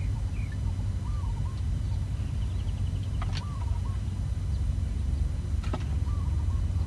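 Outdoor ambience with a steady low rumble, over which birds give short chirping calls about a second in, just after three seconds and again after six seconds, with a quick high trill in between. Two faint clicks come a little after three seconds and near the end.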